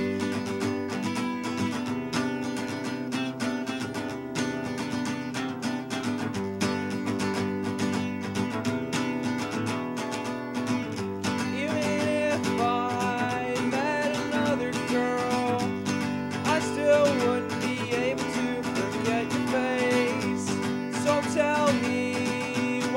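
Acoustic guitar strumming chords steadily in an acoustic rock song, with a wavering melody line joining about halfway through.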